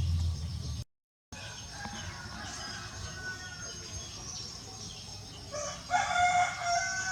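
A low hum that cuts out abruptly just under a second in, then faint background noise, and about six seconds in a long, pitched call lasting over a second that falls at its end.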